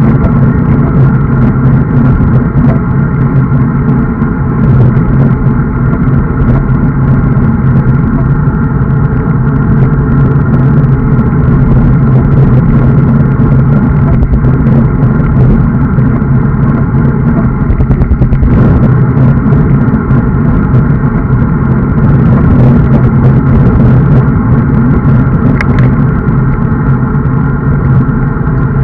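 Steady, loud wind rush and road rumble on a bicycle-mounted camera's microphone while riding at speed on a road bike.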